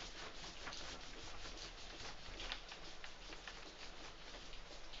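A whiteboard being wiped clean of marker writing: faint, quick, repeated rubbing strokes.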